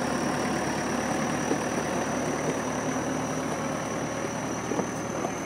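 Massey Ferguson tractor's diesel engine running steadily at low speed while it pulls a cassava digger through the field.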